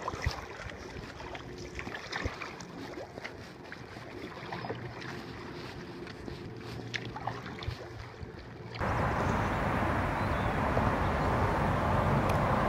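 Canoe paddling: a paddle dipping and pulling through water, with splashes, drips and light knocks. About nine seconds in it cuts suddenly to a louder, steady rush of wind on the microphone over the water.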